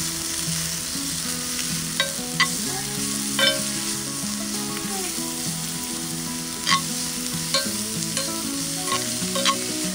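Diced onion frying in oil in a Skater 2-way skillet with a steady sizzle, stirred with a metal spoon that clinks and scrapes against the pan several times.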